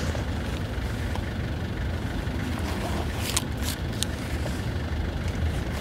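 Black cab taxi's engine idling steadily with a low rumble, with a few short clicks a little past halfway through.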